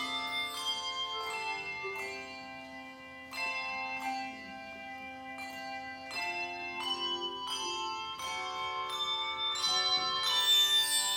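Handbell choir playing: several handbells struck in chords every second or so, each note ringing on under the next, growing louder near the end.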